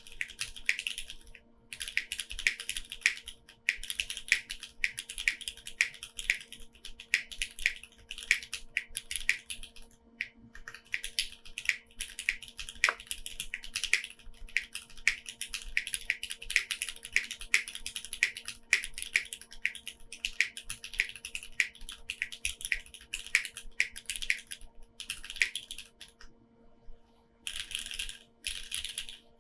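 Mechanical keyboard typed on in quick, steady runs of keystrokes: a foamless Neo65 Core with lubed Cherry MX2A Black linear switches, tuned stabilizers and GMK Maetro keycaps. The typing stops briefly a few times, longest for about two seconds near the end.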